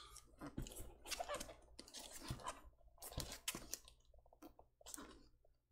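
Plastic-wrapped mailer package crinkling and rustling in short, irregular crackles as it is handled.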